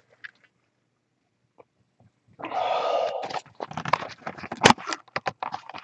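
Plastic shrink wrap on a cardboard card box being torn open: a ripping sound lasting about a second, about two and a half seconds in, then a run of crinkling and crackling as the wrap is worked off the box.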